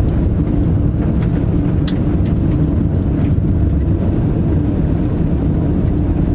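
Inside a moving car on an unpaved road: steady low road and engine rumble with a faint hum, and a few light scattered ticks.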